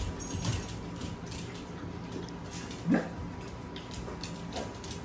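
Dogs' claws clicking and skittering on a wooden floor as they play, with a single short, loud bark about three seconds in.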